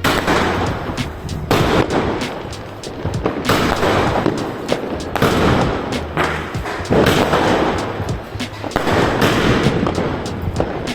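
Firecrackers bursting in rapid, irregular runs of sharp bangs, several a second, over background music.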